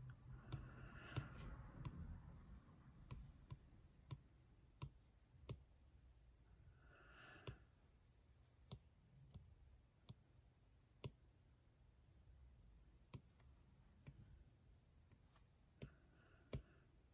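Faint, scattered taps of a stylus on a tablet screen, irregular and roughly one a second, over near-silent room tone.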